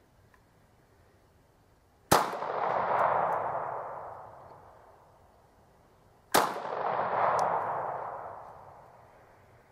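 Two pistol shots about four seconds apart, each trailing off in a long echoing rumble that fades over about three seconds.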